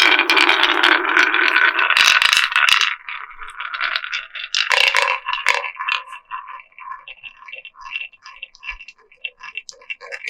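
Marbles rolling and clattering down a wooden HABA marble-run slope: a dense rattle for the first three seconds or so, then separate clacks a few times a second.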